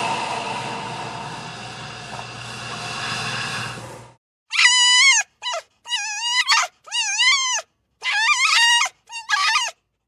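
A steady noisy drone fades out over the first four seconds. Then come about six high-pitched whimpering cries from a young animal, each wavering up and down in pitch, with clean silence between them.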